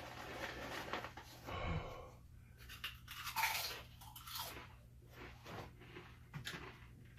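Crunchy chips being chewed: irregular soft crunches and clicks over a steady low hum.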